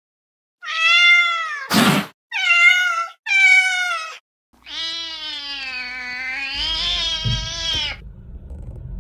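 Cat in a pet carrier meowing: three short meows, then one long drawn-out meow. A short noisy burst comes after the first meow, and a low rumble like a running vehicle comes in during the long meow.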